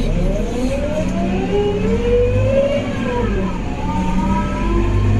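Scania K230UB bus's ZF Ecomat automatic gearbox whining loudly under acceleration, with the diesel engine rumbling beneath, heard from inside the passenger cabin. The whine climbs in pitch, falls away about three seconds in, then climbs again.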